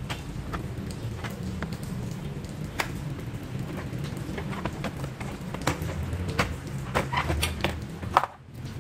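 Irregular light clicks and taps of a wrench against metal as it is fitted onto the drive-belt tensioner pulley of a Mazda Skyactiv engine, over a steady low hum; the sharpest click comes near the end.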